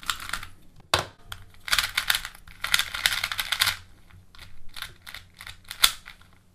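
MoYu 2x2 speedcube being turned quickly by hand, its plastic layers clicking in quick runs with a few single sharp clicks.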